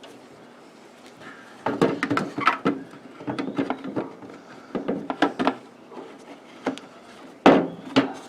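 Irregular clicks and knocks of an F-150's plastic tail light assembly and bulb sockets being handled and fitted back together, in several clusters, the loudest knock near the end.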